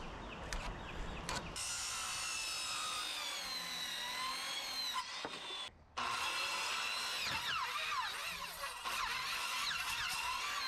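Electric power saw cutting boards to length, its whine dipping and rising in pitch as the blade works through the wood, with a brief break about halfway through.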